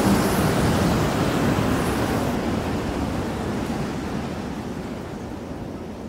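Storm-driven Atlantic surf and wind, a steady rushing noise that fades out gradually.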